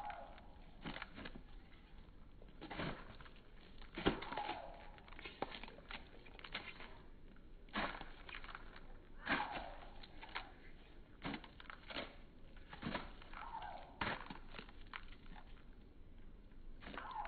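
Hens pecking at and crunching Frosted Mini-Wheats in a paper cup: irregular sharp pecks and crunches, about one or two a second, with a few short sounds that fall in pitch.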